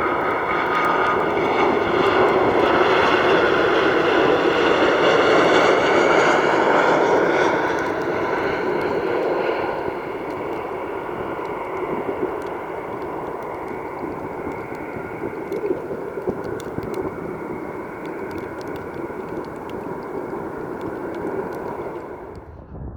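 Jet engines of a Boeing 737-700 on its landing pass, loudest a few seconds in, with a high whine that falls in pitch as it goes by. It then eases to a steadier, quieter rumble and cuts off abruptly near the end.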